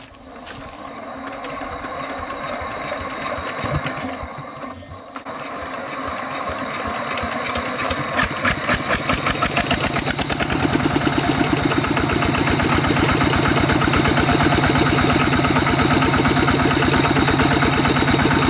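Stationary single-cylinder diesel engine starting up: it catches and builds speed unevenly for several seconds, belching thick exhaust smoke, then settles into a fast, steady chugging run with its belt-driven pulleys turning.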